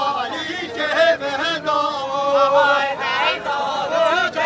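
Men's voices singing a folk song unaccompanied for a halay line dance, the melody sliding and bending in long ornamented phrases.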